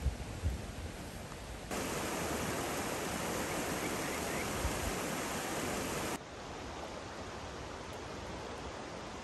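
Steady rush of a mountain stream. It turns abruptly louder and brighter a little under two seconds in and drops back just as suddenly about six seconds in. A few dull low bumps come at the start.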